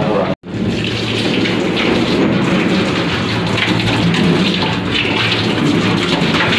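Water from a hand-held shower nozzle spraying onto a wet dog and the stainless-steel grooming tub, a steady hiss and patter. It drops out for a moment just under half a second in.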